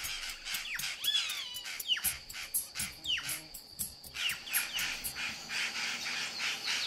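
A flock of plush-crested jays and purplish jays calling in a racket of repeated falling calls and harsh notes, the noise they make while mobbing a roosting owl. A steady high drone of cicadas runs underneath.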